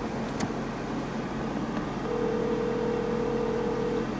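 Telephone ringback tone from a smartphone on speaker: one steady ring lasting about two seconds, starting about halfway through, while the call waits to be answered. Under it, the steady hum of a car interior.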